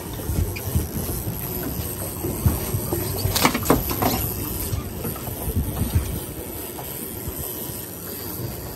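Low rumbling wind and boat noise on open water, with a cluster of sharp knocks about three and a half seconds in.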